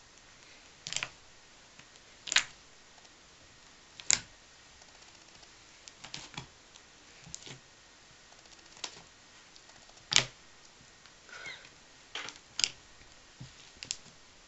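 Fluffy slime popping and crackling as fingers poke and press into it, trapped air bursting out in sharp, irregular pops, about one a second.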